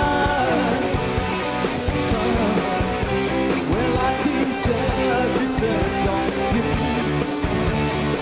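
Live rock band playing: distorted electric guitars and drums under a male lead vocal, which sings a melodic line at the start and again around the middle.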